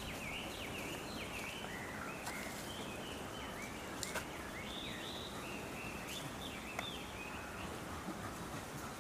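Steady outdoor background noise with many short, quick chirps from small birds, and a couple of sharp clicks about four and seven seconds in.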